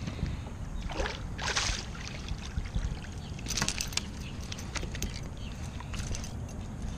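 A small fish is lifted from the water and landed on a kayak's plastic deck: a short splash about one and a half seconds in, then scattered light knocks and clicks over a steady low rumble.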